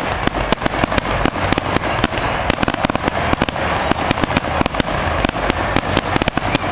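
Aerial firework shells bursting in rapid succession: a dense barrage of sharp bangs, several a second, with no pause between them.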